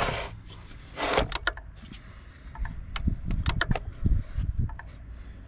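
Handling of a car battery's positive terminal clamp and its plastic terminal cover: scattered metal and plastic clicks, a couple of short scrapes early on, and a cluster of clicks and light knocks about three to four seconds in.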